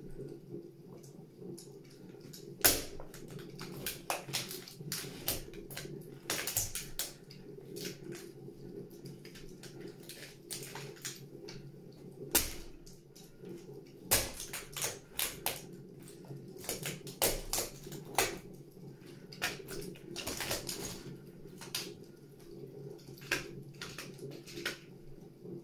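Plastic toy train and track pieces cracking and snapping under stiletto heels: a string of irregular sharp cracks and clicks, the loudest about three seconds in and again around twelve and fourteen seconds, over a steady low hum.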